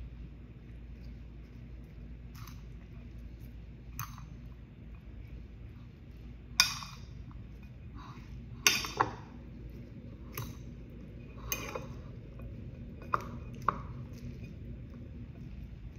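Metal fork clinking against a ceramic bowl while a salad is mixed in it: about nine separate, irregular clinks, the loudest about six and a half seconds in, over a low steady hum.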